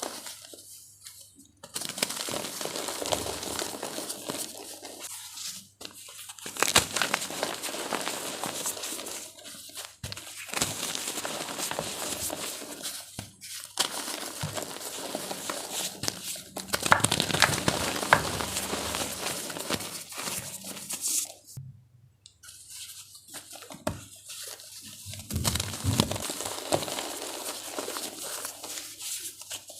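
Blocks of gym chalk being crushed and crumbled, a dense crackle of small crunches that comes in bouts of several seconds with short pauses between them.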